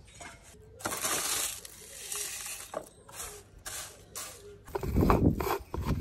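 Dry moringa leaves crackling and rustling as they are handled into a glass grinder jar. Near the end, louder clicking and clattering as the plastic blade lid is twisted onto the jar.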